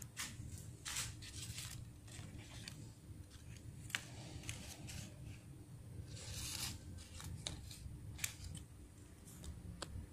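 Origami paper butterflies rustling and crinkling as a hand picks them up and sets them down on a table: short, scattered crackles and clicks, some longer rustles, over a steady low hum.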